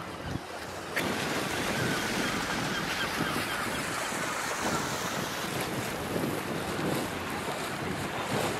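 Steady rush of wind on the microphone and moving water, starting abruptly about a second in.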